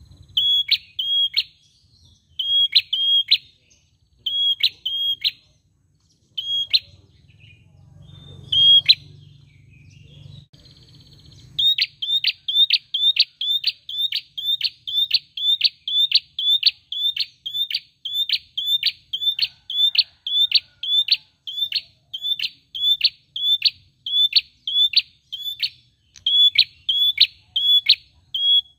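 A caged tailorbird calling with loud, high, clipped chirps: at first in short groups of two or three with pauses between, then after about twelve seconds in an unbroken even run of about two chirps a second.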